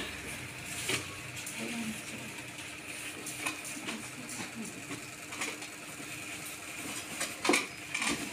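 A small handheld electric fan running with a steady faint hum, with a few scattered clicks and knocks.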